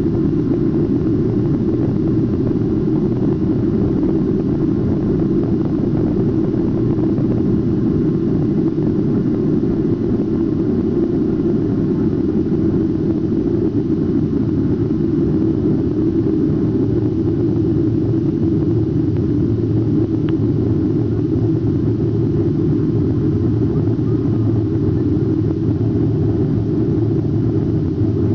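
Cabin noise of a Boeing 737-700 taking off: its CFM56-7B turbofan engines at takeoff power, heard from inside the passenger cabin as a steady deep noise through the end of the takeoff roll, liftoff and the initial climb.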